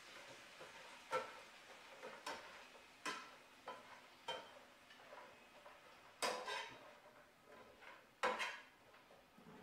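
Spatula clacking and scraping against a skillet as bread cubes are stirred and turned: a string of short knocks about once a second, the two near the end louder and drawn out into scrapes.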